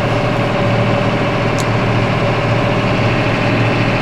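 Tractor engine running steadily, heard from inside the cab, with one short click about a second and a half in.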